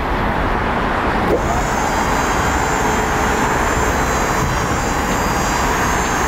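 Electric-hydraulic pump of a 3,000 lb aluminum tuckaway liftgate running steadily as the platform unfolds and lowers. A click comes about a second in, after which a steady high whine joins the running noise.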